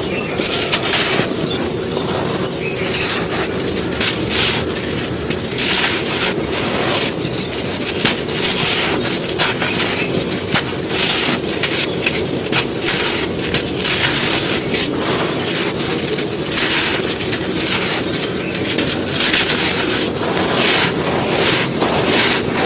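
Dry molded black sand shapes being crushed and crumbling on a floor: a dense, continuous run of gritty crunches and crackles, with louder crunches every second or so.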